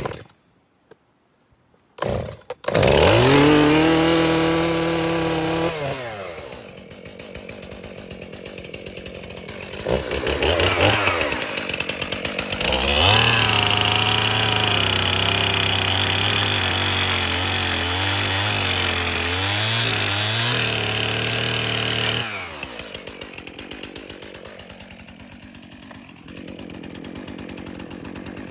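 Gas-engine saw cutting white oak: the engine revs up, eases off, then runs under load with a high whine as the blade goes through the wood, and drops back to idle near the end.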